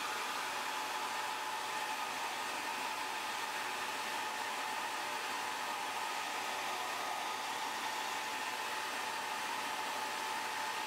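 Hair dryer blowing steadily: an even rush of air with a faint steady whine, heating the phone's glass to soften the digitizer adhesive.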